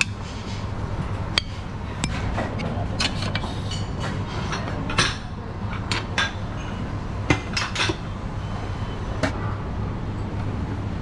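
A serving spoon clinking and scraping against buffet dishes and a plate as food is scooped out: scattered sharp clinks, the loudest about five and seven seconds in, over a steady low hum.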